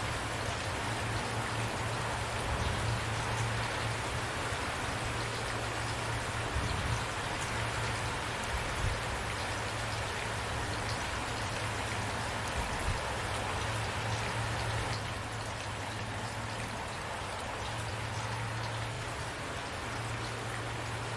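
Steady rain falling on a surface: a constant hiss with fine scattered drop ticks and a low steady drone underneath.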